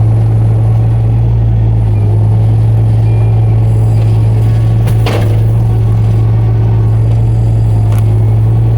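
Mini excavator's engine running steadily under load, a loud constant low hum, with a single sharp crack or knock about five seconds in.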